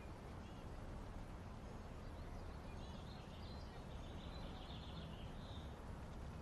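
Faint room tone with a low steady hum, and small birds chirping faintly, the chirps clustering a few seconds in.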